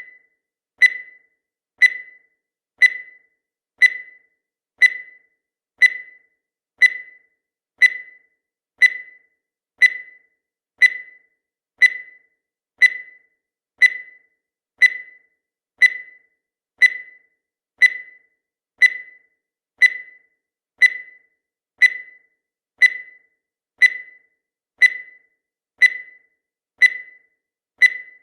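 Countdown timer sound effect: a short high-pitched beep once every second, each fading away quickly, in a steady even rhythm.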